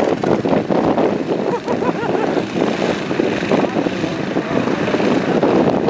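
A pack of racing karts' engines running together, many overlapping engine notes wavering up and down as the drivers rev.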